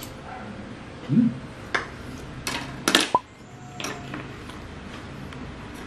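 Metal cutlery clinking on a ceramic plate during a meal: a few sharp clicks of a spoon and fork, one ringing briefly. A short low sound, rising in pitch, comes about a second in.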